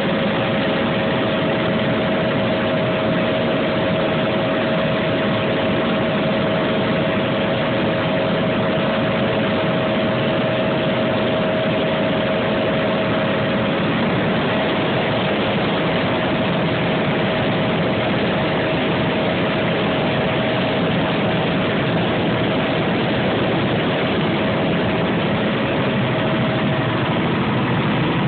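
Helicopter in flight, heard from inside the cabin: a steady, dense engine and rotor noise with a constant whining tone.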